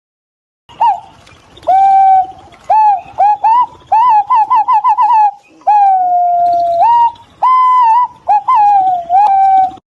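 Green pigeon calling: a string of clear, whistled notes that slide up and down. In the middle comes a quick run of short rising whistles, followed by a long, drawn-out whistle.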